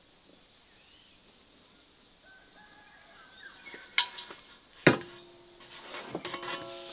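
Kitchenware being handled: two sharp clinks, about four and five seconds in, each ringing briefly, followed by lighter clattering of dishes or utensils. Faint bird chirps come before the clinks.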